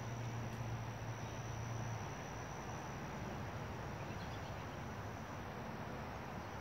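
Woodland ambience: a steady, thin high-pitched insect drone over a low hum that drops away about two seconds in.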